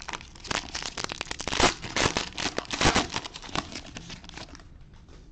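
Plastic cello wrapper of a trading-card pack being torn open and crinkled by hand: a dense run of rapid crackles that dies down about four and a half seconds in.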